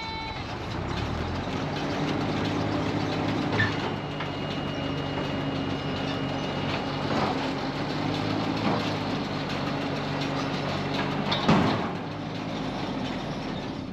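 A vehicle engine running steadily, with a sharp knock about three and a half seconds in and a louder one near twelve seconds.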